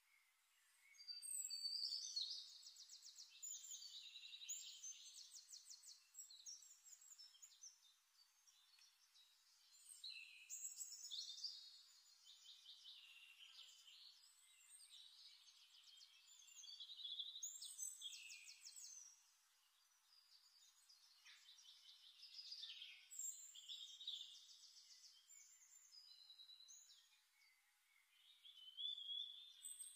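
Faint songbird song: a run of high, quick trilled and chirping phrases, each lasting a couple of seconds, repeating about every five to seven seconds with short pauses between.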